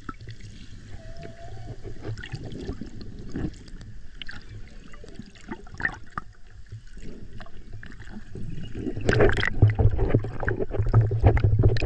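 Humpback whale calls heard underwater: a few short pitched calls, one about a second in, over a constant underwater crackle and low hum. From about three quarters of the way through, loud bubbling and crackling as a diver's bubbles pass the microphone.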